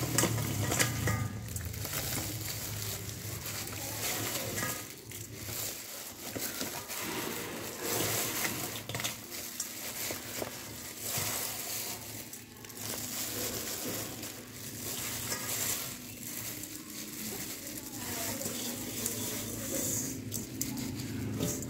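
Plastic-gloved hands lifting crisp fried salt chicken pieces out of a steel bowl onto a plate: crinkling of the plastic gloves, rustling of the salt-crusted pieces, and light clinks of bowl and plate. Near the end the bowl is tipped and loose salt crumbs patter onto the plate.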